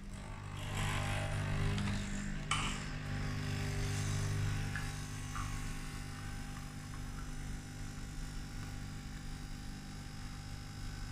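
Nespresso capsule machine's pump humming steadily as it brews an espresso, with coffee running into a glass cup. A single click about two and a half seconds in; the hum eases off a little after about five seconds.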